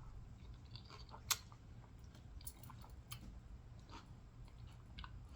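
Quiet eating and food-handling sounds: scattered small clicks and taps, with one sharper click a little over a second in.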